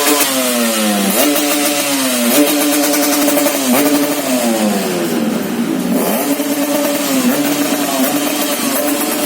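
Motorcycle engine fitted with an aftermarket CDI ignition with a rev limiter, revved up and down in several quick throttle blips, with a long drop in revs about halfway through before settling back to steadier running.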